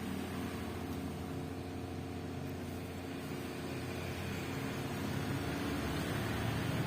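Samsung inverter washing machine running: a steady mechanical hum with low tones, growing slightly louder near the end.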